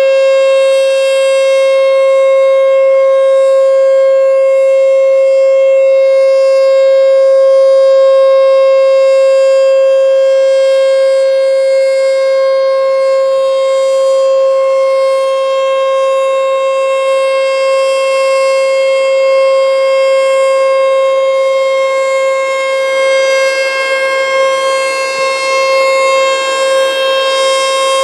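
American Signal T-121 outdoor warning siren sounding a loud, steady tone during an emergency siren test. It holds one unchanging pitch rather than wailing up and down, and its loudness dips and swells slightly toward the end.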